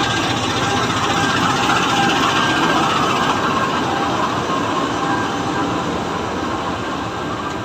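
Philippine National Railways diesel multiple unit 8103 running along the line: a steady rumble and rush of the train, easing slightly near the end.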